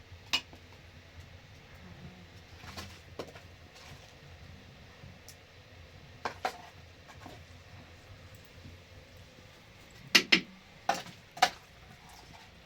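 Scattered sharp knocks and clatters, a few spread through the first seven seconds and a quick run of four near the end, over a low steady background hum.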